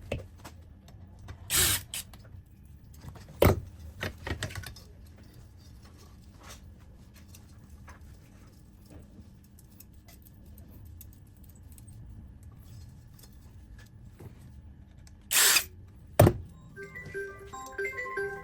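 Scattered knocks, clicks and short scraping bursts from tools and parts being handled on a workbench, over a low steady hum. A short tinkling melody of music starts near the end.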